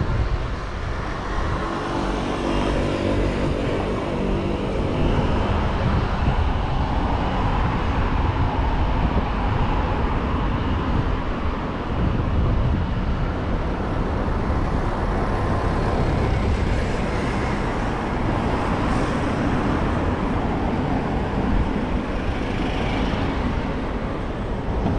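Road traffic on a city street: cars passing with a steady tyre and engine rumble. A vehicle engine hums clearly for a few seconds near the start.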